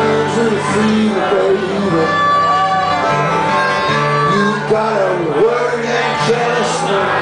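Live band playing a song: guitar and a gliding melody line over steady bass notes.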